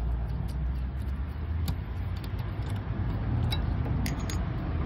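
Light metallic clicks and ticks from an M8 × 1.25 hand tap and its wrench being worked in a freshly drilled hole in the rear axle arm housing, cutting a thread for a grease nipple. Under them runs a steady low rumble.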